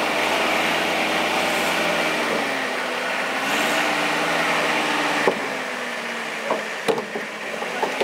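Toyota pickup truck's engine running at low revs, its pitch rising and falling gently twice as it creeps forward onto a plank raft. A few sharp wooden knocks come near the end as the planks shift under the wheels.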